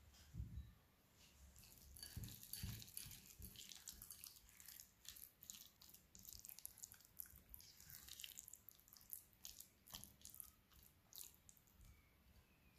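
A spoon stirring a thick ricotta and chocolate-chip mixture in a glass bowl: faint, irregular wet squelches and small clicks against the glass.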